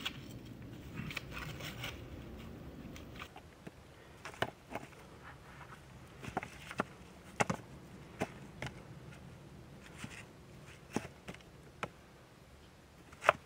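Stones knocking and clicking together as wet mud and stones are packed by hand onto a rock-and-log dam, in scattered single strikes with the loudest one near the end.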